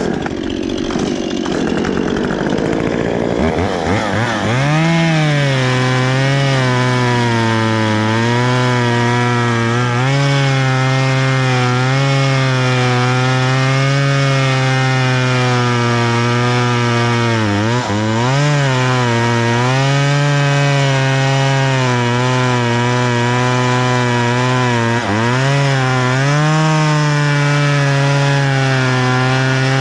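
Two-stroke chainsaw cutting wood. It revs up over the first few seconds, then runs at steady high speed under load, its pitch dipping briefly twice in the second half.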